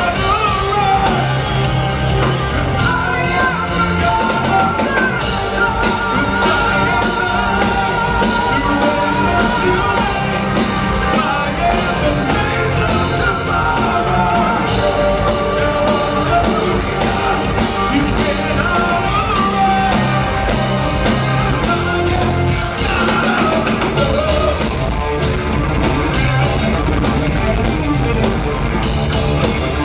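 Live progressive metal band playing, with a male lead vocal over drums, electric bass, electric guitar and keyboards.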